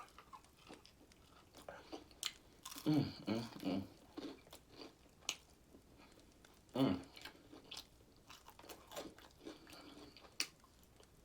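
Close-up chewing and biting of fried chicken wings, with small wet mouth clicks and occasional crunches of the breading. Twice there is a short "mm" hum of enjoyment.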